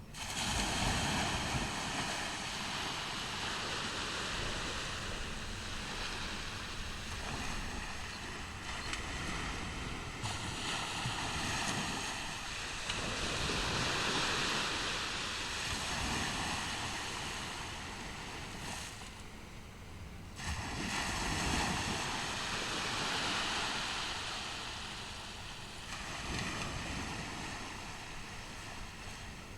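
Ocean surf breaking and washing up a beach, swelling and ebbing, with the biggest waves about halfway through and again about three quarters through. Wind rumbles on the microphone underneath.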